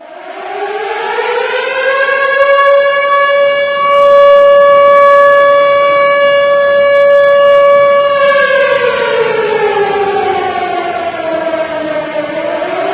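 Loud civil defense siren (nuclear attack warning) rising in pitch, holding one steady tone for about six seconds, then falling slowly and beginning to rise again near the end.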